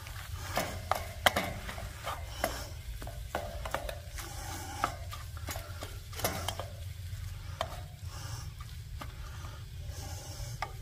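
A nylon spatula scraping and stirring scrambled eggs and sausage in a stainless steel pan, with irregular scrapes and clicks over a soft frying sizzle. A low steady rumble runs underneath.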